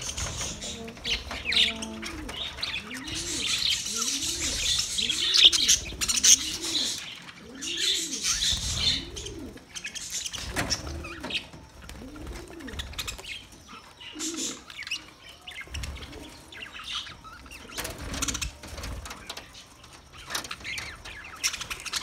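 A flock of budgerigars chattering and chirping, with frequent wing flaps. Through the first half a low rising-and-falling cooing call repeats about every two-thirds of a second.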